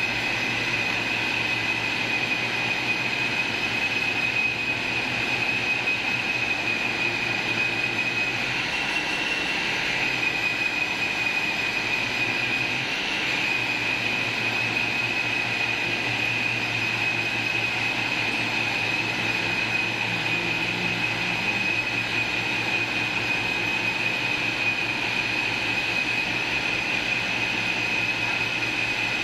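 Electric motor of a wood grooving machine running steadily, its rollers turning, with a high whine over a low hum; the whine wavers briefly twice.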